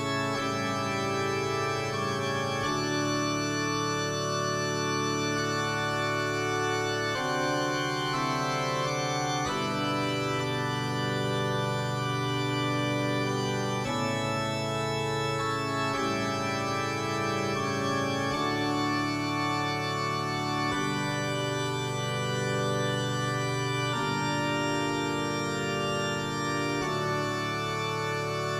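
Instrumental outro of a song: sustained organ chords, the harmony changing every two to four seconds at a steady level.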